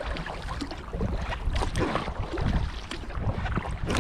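Kayak paddles dipping and splashing in the water, with wind rumbling on the microphone.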